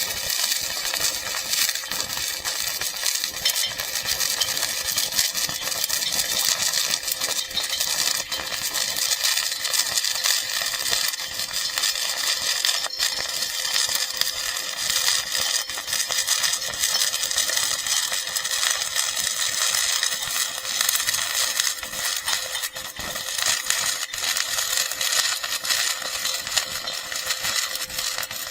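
Stick-welding arc of an E6013 electrode crackling and sizzling steadily throughout.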